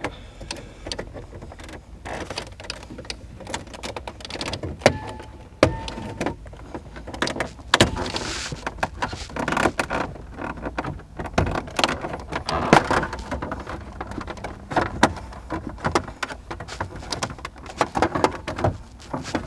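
An old, cracked plastic dashboard defrost panel being pried up by hand from the base of a Dodge Charger's windshield: an irregular run of sharp clicks, snaps and creaks as the trim clips pop loose, with scraping and rubbing of plastic between them.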